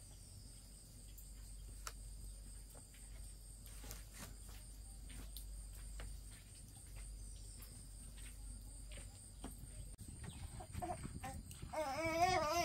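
Quiet background with a steady high-pitched drone and a few soft knocks; near the end a loud wavering cry starts.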